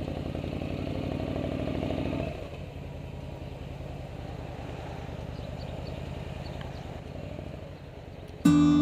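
Motorcycle engine running on the move, rising a little for about two seconds, then dropping suddenly to a quieter, lower run. Acoustic guitar music cuts in near the end.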